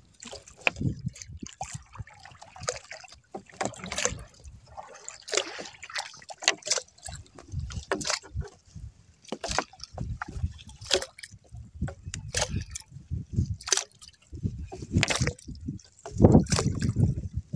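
A fishing net being paid out over the side of a small outrigger boat: irregular splashes and slaps of net and water, with sharp knocks, and a heavier low rush near the end.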